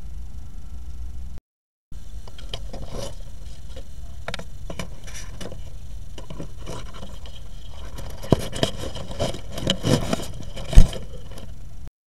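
Handling noise on a trail camera's built-in microphone: scrapes, rubs and knocks as a hand grips and adjusts the camera. They come sparsely at first, then thicker and louder near the end, with one sharp knock shortly before it ends, over a steady low hum. The sound cuts out briefly about a second and a half in.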